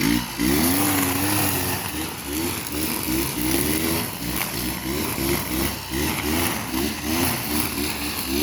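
Kawasaki TJ45E brush cutter's two-stroke engine running hard, its pitch rising and falling about twice a second as the load on the line head changes.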